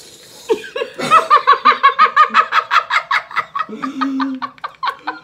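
A person laughing hard: a fast, high-pitched run of 'ha' pulses, about six a second, starting about a second in and tailing off after a couple of seconds.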